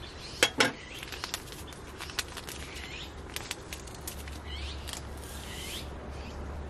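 Paper instant-coffee stick sachets being handled, torn and emptied into an enamel mug: two sharp clicks about half a second in, then light crinkling and small ticks. Birds chirp briefly in the background around the middle.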